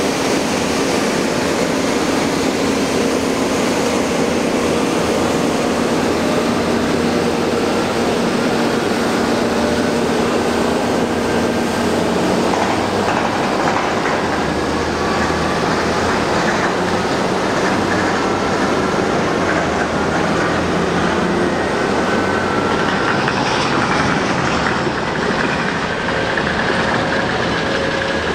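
Liebherr articulated dump trucks driving over a bumpy test track: steady diesel engine and running noise, with a faint whine that slowly rises in pitch in the second half.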